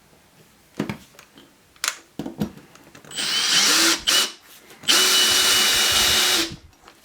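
Power drill driving a wax-coated screw into wood, running twice with a steady whine, first briefly and then for about a second and a half, after a few handling clicks. The wax lubricates the screw so it goes in more easily.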